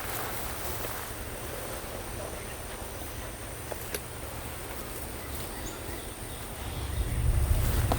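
Outdoor background ambience: a low rumble on the microphone that grows louder near the end, a faint steady high-pitched tone, and two small clicks about four seconds in.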